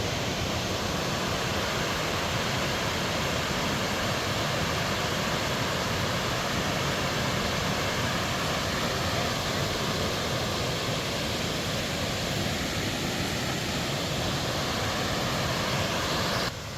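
Steady rushing of a large waterfall, the Falling Water River plunging at Burgess Falls. It cuts off suddenly just before the end.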